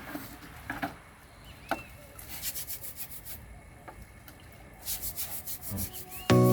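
Irregular hand rubbing and scrubbing strokes with a few light clicks and knocks, from scrubbing a greasy motor clean for its rebuild. Music comes in near the end.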